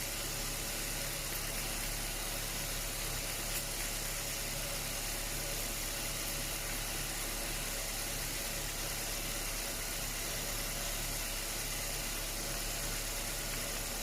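A Ford Focus engine idling steadily, with a steady hiss over it.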